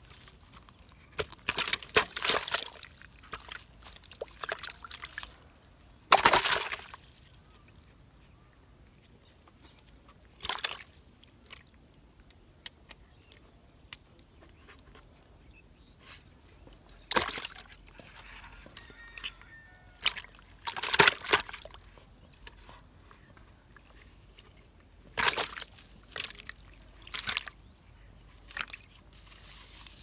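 Water splashing and sloshing in a plastic bucket as a caught fish is handled in it: short separate splashes a few seconds apart, with quiet stretches between.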